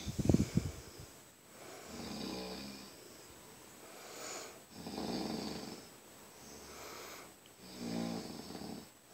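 A man snoring while asleep: a rough, pitched snore about every three seconds, with breathy noise between them. A brief loud burst comes right at the start.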